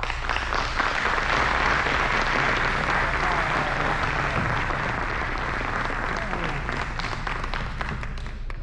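Audience applauding, starting suddenly, loudest in the first few seconds and gradually tapering off toward the end.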